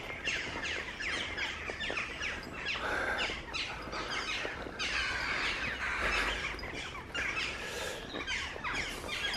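Several small songbirds singing and chirping, mostly quick downward-sliding notes repeated again and again, with a few brief rustles between them.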